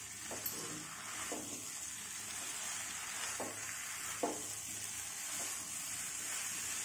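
Raw jackfruit pieces and spice paste sizzling in a nonstick wok as a silicone spatula stirs them, with about five short strokes of the spatula against the pan over the steady sizzle.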